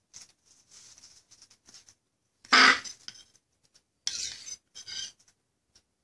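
Baby blue-and-gold macaw begging as it is hand-fed from a spoon: one loud, harsh squawk about halfway through, then two shorter raspy calls near the end.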